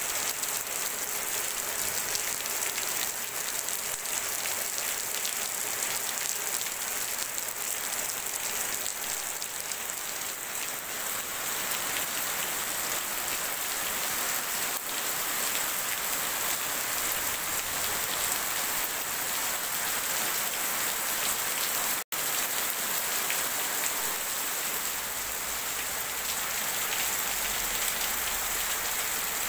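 Steady rain: a dense, even hiss of drops falling into a puddle and streaming off roof eaves, with no let-up. The sound cuts out for an instant about two-thirds of the way through.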